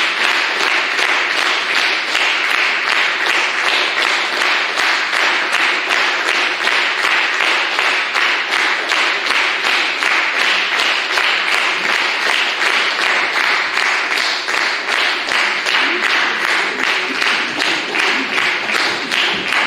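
A concert audience applauding, a steady dense clapping of many hands that eases slightly near the end.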